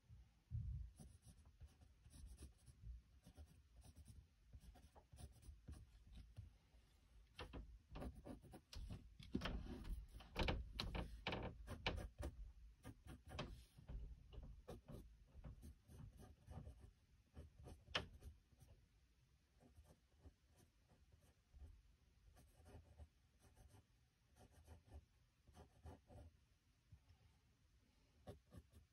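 Faint pencil sketching on paper: many short scratching strokes, busiest and loudest in a flurry about nine to thirteen seconds in, with one sharper tick around eighteen seconds.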